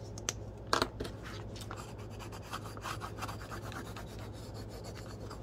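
A bone folder rubbing and burnishing a glued paper card down onto a journal page to make it stick, a steady dry scratching of the tool over paper. Two sharp knocks come in the first second, the louder just under a second in.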